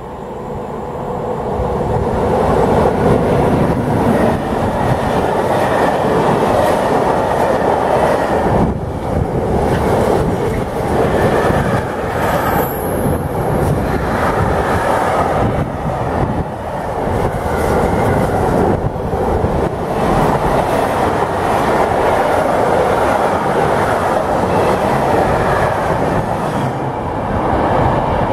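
Freight train of tank-container wagons passing close by at speed, a loud steady rumble with wheels clacking over rail joints. The sound swells in over the first couple of seconds, and a brief high-pitched wheel squeal comes about halfway through.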